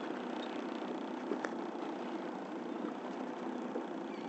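Steady low engine hum, with a single knock about a second and a half in.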